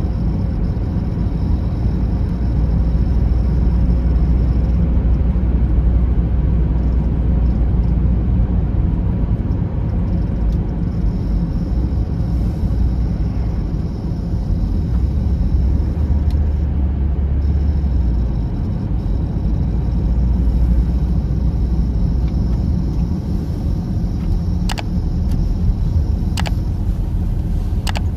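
Inside a car's cabin while driving on snowy roads: steady low engine and tyre rumble, with a few short faint clicks near the end.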